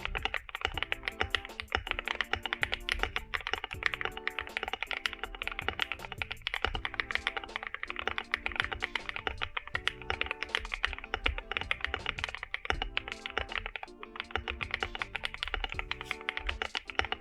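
Fast, continuous typing on an Akko MOD005 gasket-mount aluminium mechanical keyboard fitted with Akko CS Snow Blue Grey switches and double-shot PBT keycaps. The key presses come as a dense run of short clicky thocks, with background music underneath.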